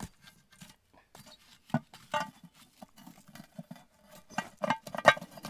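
Claw hammer knocking and scraping against the cast iron camp oven lid and the coals on it: sharp metallic clinks, two about two seconds in and a louder cluster of them about four to five seconds in.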